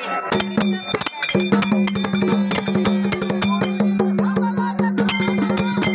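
Traditional Dhangari percussion: a large bell-hung barrel dhol and a smaller hand drum beaten with rapid strokes of the hands, with small brass hand cymbals (taal) clashing in rhythm over a steady low drum ring. The cymbal ringing grows brighter from about five seconds in.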